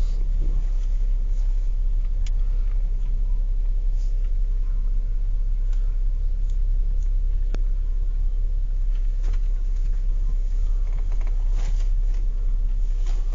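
Steady low vehicle rumble, with a few faint clicks.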